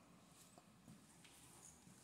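Near silence: room tone of an empty tiled room, with a few faint ticks.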